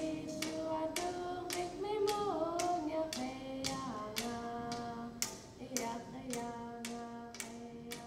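Alaska Native song: voices holding long notes that slide up and down, over sharp, evenly spaced drum beats about twice a second.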